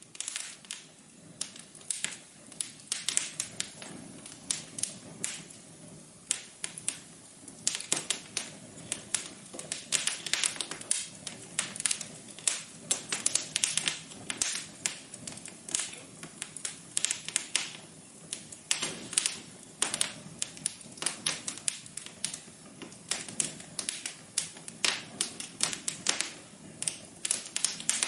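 Fireplace crackling: a dense, irregular run of sharp snaps and pops from burning wood over a soft steady hiss.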